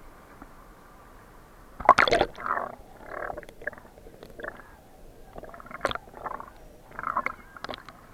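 Water splashing and gurgling in irregular bursts, the loudest about two seconds in.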